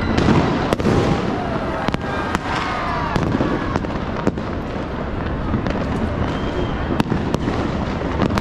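Many fireworks and firecrackers going off at once across the city: a continuous rumble of distant bursts with sharp nearer bangs at irregular intervals and a few whistles.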